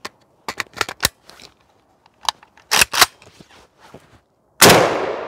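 A few sharp clicks, then a single rifle shot from an AKM Kalashnikov firing a 7.62×39 soft-point round about four and a half seconds in, with a long echo that fades away.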